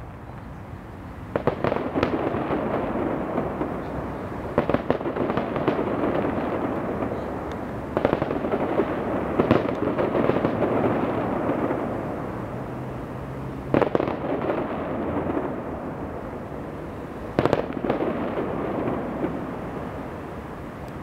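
A distant aerial fireworks display: a sharp bang every few seconds over a continuous crackling rumble, starting about a second in.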